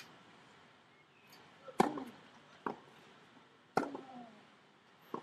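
Tennis ball struck hard by a racket twice, about two seconds apart, in a rally, with lighter ball bounces on the court in between.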